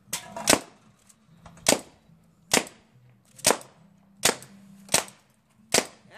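Tippmann Alpha Black paintball marker firing shot after shot, about eight sharp reports at uneven spacing, a little under one a second.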